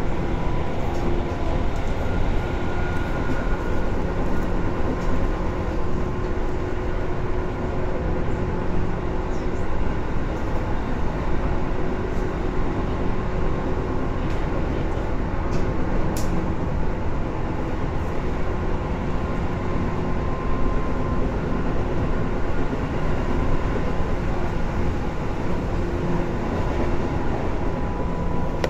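Tobu 10030 series electric train under way, heard loud from inside the car near the line breaker: a steady rumble of wheels and running gear with a constant whine over it. There is a brief sharp click about 16 seconds in.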